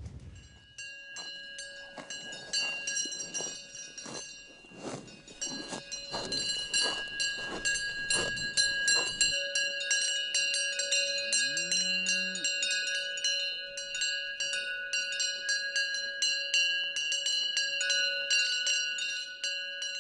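Cowbells on grazing Aubrac cattle clanking irregularly, their ringing building into a dense jangle after about nine seconds. Near the middle, a cow gives a short low moo that rises in pitch.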